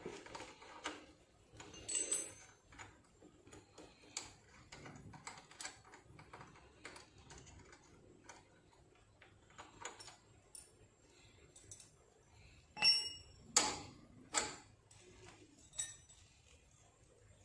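Scattered light metallic clicks and clinks as a steel muffler hanger bracket and its bolt are worked loose by hand from a motorcycle's rear frame. There are a few louder clanks near the end.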